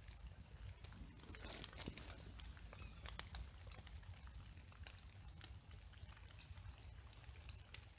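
Light rain and drips ticking irregularly, faintly, over a low rumble, with a brief rustle about a second and a half in.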